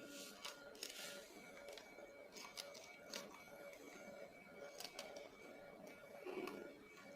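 Faint, scattered light clicks and taps of small handling at a workbench while soldering a capacitor onto an LED bulb's circuit board, over a faint steady electrical whine.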